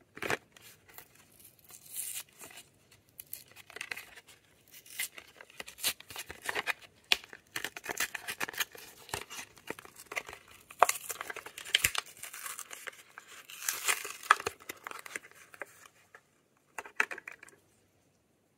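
Lip balm packaging being torn open and crinkled by hand: an irregular run of rips, rustles and sharp clicks that stops near the end after one last brief rustle.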